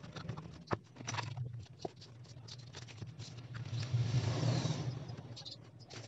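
Plastic-cased washing machine control board being handled on a workbench and wired to a tester: a few sharp clicks and knocks, then a longer rustling scrape about four seconds in, which is the loudest sound.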